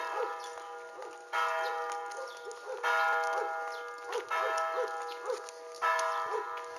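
Church bell tolling, struck about every second and a half, five strokes, each ringing on and dying away into the next.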